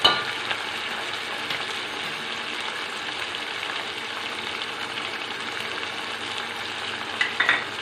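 Chopped onion, tomato and green chillies sizzling steadily in hot oil, being lightly sautéed.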